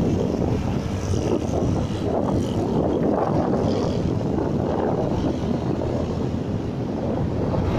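Steady wind rush over the microphone mixed with the engine and road noise of a motorcycle riding along a road.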